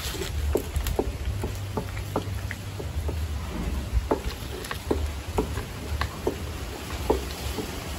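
Irregular light knocks and taps from cooking work, about two a second, over a steady low rumble.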